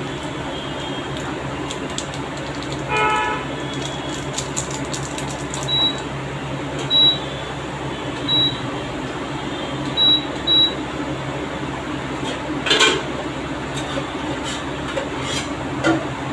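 Induction cooktop humming steadily under a steel pan of simmering water, with about five short high beeps in the middle. Near the end a silicone spatula scrapes and knocks against the pan as the Maggi masala is stirred in.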